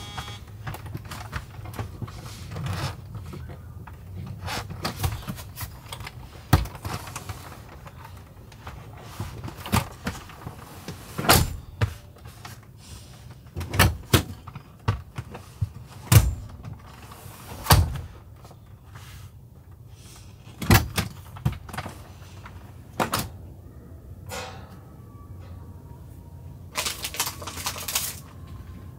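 Rear seats of a Land Rover Discovery 4 being folded flat and handled inside the car: a scattered series of sharp clunks and thuds from the seat backs and latches over a low steady hum. Near the end there is a brief rustling clatter.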